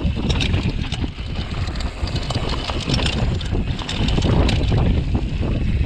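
Downhill mountain bike descending a dry dirt trail at speed: tyres running over the dirt and the bike rattling with many small knocks over bumps, under heavy wind buffeting on the camera microphone.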